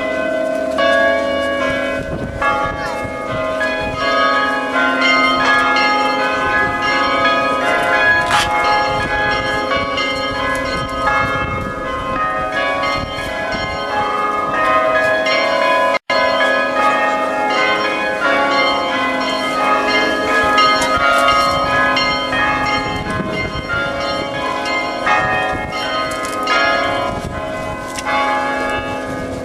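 Orthodox church belfry bells rung together in rapid, overlapping strokes: small high bells chiming quickly over the steady hum of the large low bells. The peal breaks off for an instant about halfway through, then goes on.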